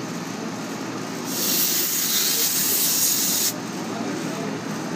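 R-410A refrigerant hissing out of the low-side gauge hose as the line is purged of air: one loud hiss of about two seconds that cuts off sharply, over the steady running noise of the air-conditioning unit.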